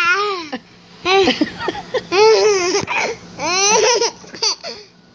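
A baby's high-pitched squeals and laughs in several short bursts with brief pauses between them.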